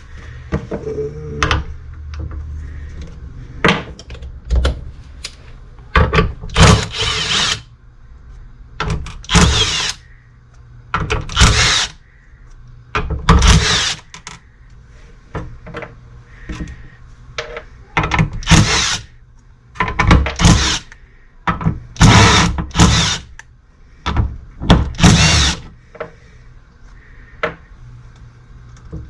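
Handheld power driver spinning out the bolts that hold a plate on a truck automatic transmission: about eight short bursts of about a second or less each, with small clinks and knocks of metal parts between them.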